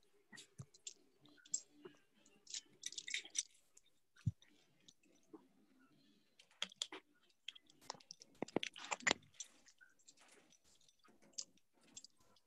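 Faint scattered clicks and rustles of phones being handled and carried, with denser bursts of rustling about three seconds in and again about nine seconds in, and one low thump around four seconds.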